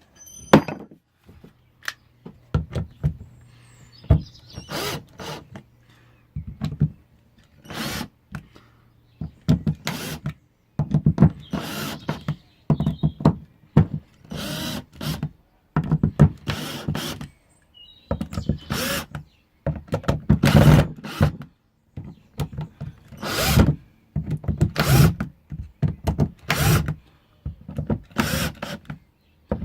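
Cordless drill-driver backing screws out of the sides of a pen-blank casting former, run in repeated short bursts with pauses between.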